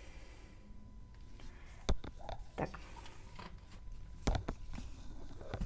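A few short sharp clicks and taps, the loudest about two seconds in and again just past four seconds, as a plastic syringe is handled, dipped into soft clay paste and drawn full.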